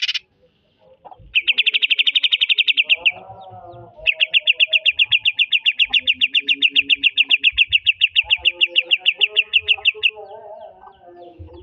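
Cucak ijo (greater green leafbird) singing its 'trotol' song: rapid runs of high, evenly repeated staccato notes, about ten a second. A short run of under two seconds comes first, then after a brief pause a long run of about six seconds that stops abruptly. Fainter, lower calls sound underneath.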